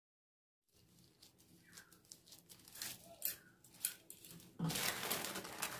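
Polythene piping bag crinkling and rustling as it is handled, with faint scattered clicks. It begins after a moment of silence and turns louder and denser about four and a half seconds in.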